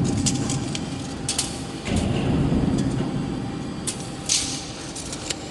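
Sheet metal being shifted by hand on a CNC panel bender's table: a scraping rumble with several sharp clicks and clanks, over a faint steady machine hum.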